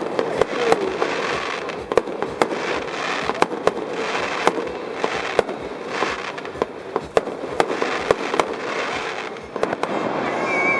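Aerial fireworks going off in a dense run of sharp bangs, several a second, over continuous crackling.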